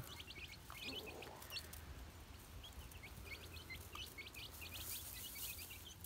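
A brood of young chicks peeping: many short, high chirps, quick and overlapping, fairly faint.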